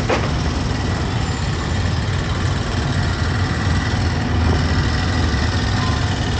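Vehicle engines running in street traffic, a steady low rumble.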